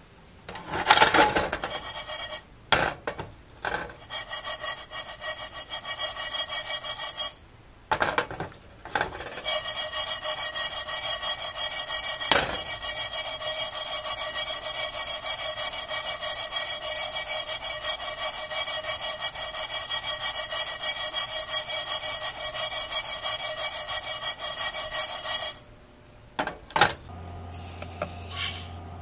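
Black sesame seeds scraped and rubbed against a pan or bowl: a few irregular scrapes early on, then a steady, rapid rasping grind that cuts off suddenly near the end.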